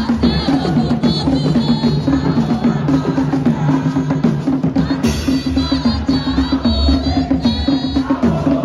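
Drum-led dance music with a fast, steady beat. A high wavering tone comes in near the start and again about five seconds in.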